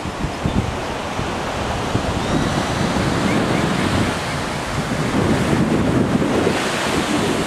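Surf breaking on a sandy beach, mixed with wind buffeting the microphone in an uneven low rumble.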